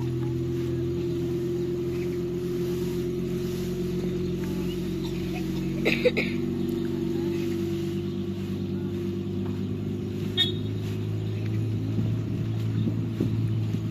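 A steady engine hum, with a couple of short knocks about six and ten seconds in.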